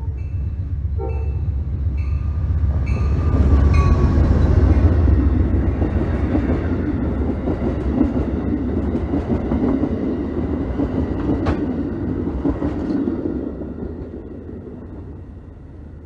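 Amtrak passenger train passing at speed. The locomotive's rumble swells to its loudest about three to five seconds in, then the passenger cars rush and clatter past and the sound fades away over the last few seconds. A regular ringing strike about once a second sounds over the first few seconds.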